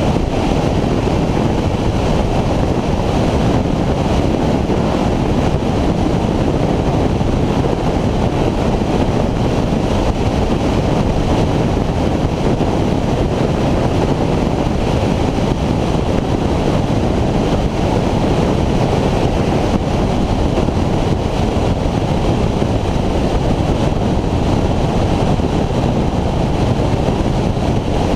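Steady wind rush on the microphone of a Honda VFR800X motorcycle riding at constant road speed, a loud even noise mostly low in pitch, with the bike's running sound mixed in and no gear changes or revving.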